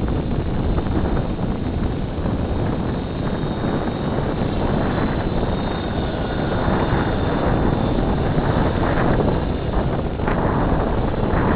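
Logo 600 electric RC helicopter flying, its rotor and motor running steadily under heavy wind noise on the microphone. A faint high-pitched squeal rides on top, which the owner takes for a bad bearing.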